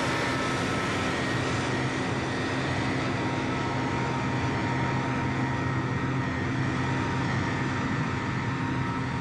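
Panhard ERC 90 Sagaie six-wheeled armoured car driving at steady speed, its engine and drivetrain running with an even hum and a steady high whine.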